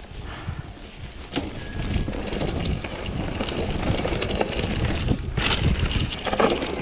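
Mountain bike riding over rock and a dirt forest trail: steady tyre and drivetrain noise with the bike rattling, and wind buffeting the camera microphone. Several sharp knocks from the bike, the loudest about five and a half seconds in.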